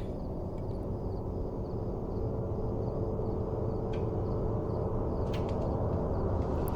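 Ambient film soundtrack: a low, steady drone that slowly grows louder, with a faint high chirp repeating about three times a second over the first few seconds and a few soft clicks in the second half.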